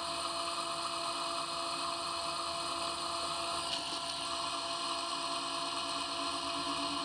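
Metal lathe running while a parting tool cuts into the spinning steel shell of a Mercedes SBC brake accumulator: a steady whine made of several even tones that holds throughout.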